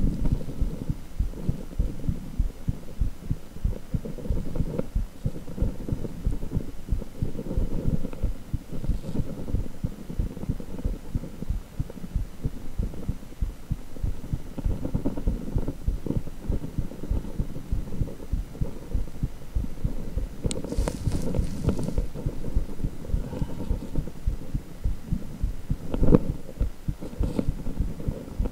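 Heartbeat sound from a cardiac ultrasound (echocardiogram): a continuous run of low, rhythmic pulses. A brief hiss comes about three quarters of the way through, and a short knock follows near the end.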